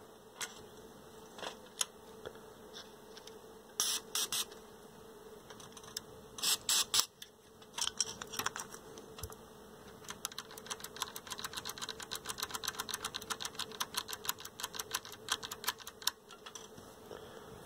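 A few short spritzes of contact cleaner from a spray can. Then a TV's AFC switch is clicked rapidly back and forth many times to work the cleaner into its contacts. A faint steady hum sits underneath.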